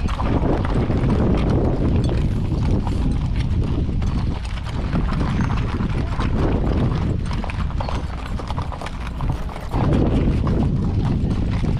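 Horses' hooves clip-clopping at a walk on a packed dirt road, several horses together, over a steady low rumble.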